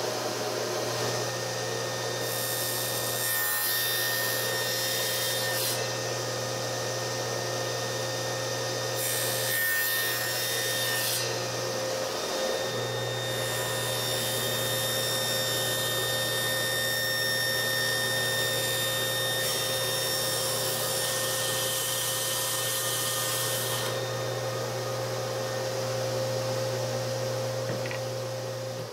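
Table saw running steadily while cutting a shallow dado in a small piece of 1/2-inch plywood. Three stretches of the blade cutting wood sound over the motor's hum: a short one about two seconds in, another around nine seconds, and a long one of about ten seconds from about thirteen seconds in.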